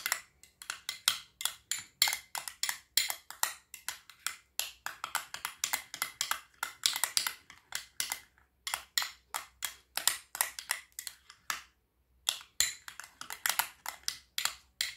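Metal spoon stirring a thick cream in a small ceramic bowl, clicking and scraping against the bowl's sides about four or five times a second, with two short pauses, one past halfway and one near the two-thirds mark.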